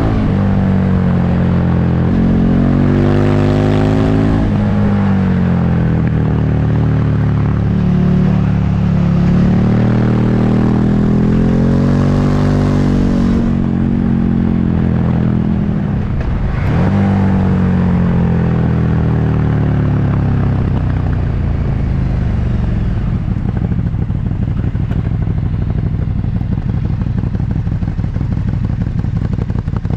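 Motorcycle engine under way, its pitch rising and falling repeatedly as the bike accelerates, shifts and backs off, with steady wind rush over it. About halfway through the revs drop sharply and then climb again; in the last third the engine settles to a steadier, lower note.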